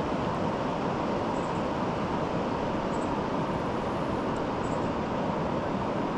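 Steady rush of river water running through rocky shoals, an even, unbroken noise that does not change in level.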